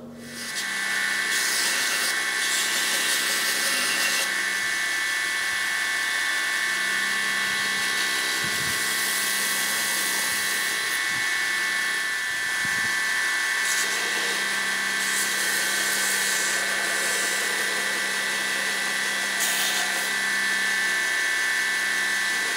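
Electric bench belt grinder running with a steady high whine over a motor hum. The knife's micarta-style handle is being sanded on the belt, with rougher hissing stretches each time it is pressed against the belt.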